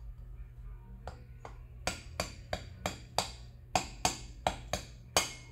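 An adjustable wrench tapping repeatedly on the Begode Master electric unicycle motor's hub around its stuck steel bearing, trying to jar the bearing loose from the heated aluminium plate. A couple of light knocks come about a second in, then sharp metal strikes follow at about three a second.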